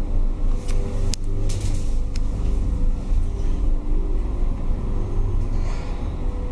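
1984 Valmet hydraulic lift travelling: a steady low rumble and hum from the car and its hydraulic drive, with a few sharp clicks in the first two seconds.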